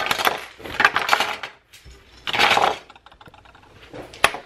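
Plastic Lego bricks clattering and clicking as a hand handles them and sets them down on a table, in several short rattling bursts with one sharp click near the end.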